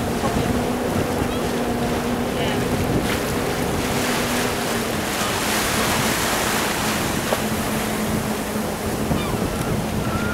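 A boat's engine droning steadily under wind buffeting the microphone and the wash of a slightly choppy sea.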